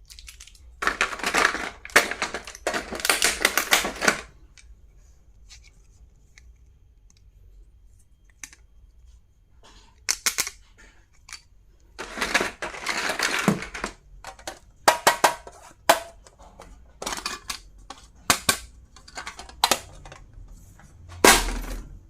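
Stationery items and their packaging being handled: two spells of rustling, then a run of sharp clicks and taps.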